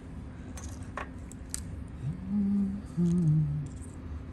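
A man humming a few low notes: one held note about two seconds in, then two shorter notes stepping down in pitch. A few faint clicks come before the humming.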